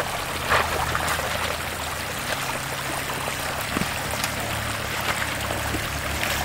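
3rd gen Toyota 4Runner's engine running at low, steady revs while crawling an icy, snow-covered rock section, under a steady rushing hiss from the tyres in the snow and scattered small crunches and knocks.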